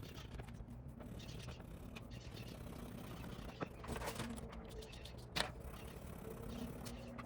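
Faint scratching of colouring in on paper, with two sharp clicks, the second a little louder, past the middle.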